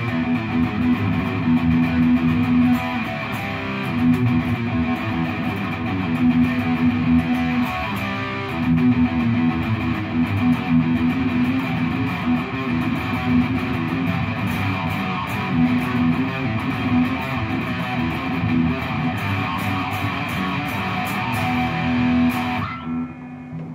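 Santa Cruz electric guitar with an ESP-style headstock, played through a Fender combo amplifier: continuous riffs and held notes with a fierce tone. The playing breaks off near the end, leaving a low note ringing.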